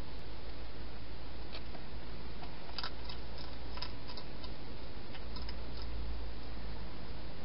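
Wild hedgehog feeding at a bowl inside a plastic feeding box: scattered small sharp clicks and ticks of eating, with a short cluster about three seconds in, over a steady low hum and hiss.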